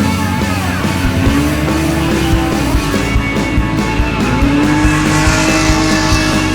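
Drift car engine revving up twice over rock music, with tyre squeal in the second half.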